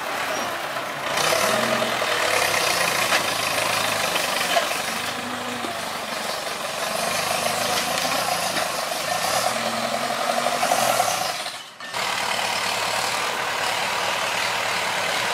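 Farm tractor engine running under load, its revs rising and falling several times. About twelve seconds in it breaks off for a moment, then runs on more steadily.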